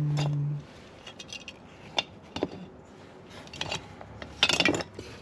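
Vintage glass ornaments being handled and bagged: scattered light clicks, clinks and crinkly rustles, busiest about four and a half seconds in. A short hummed "mm" from a person comes right at the start.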